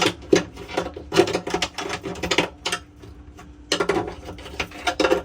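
Irregular clattering and knocking of food containers, bottles and refrigerator shelves being handled and moved while a refrigerator is emptied for cleaning, with a brief lull about three seconds in.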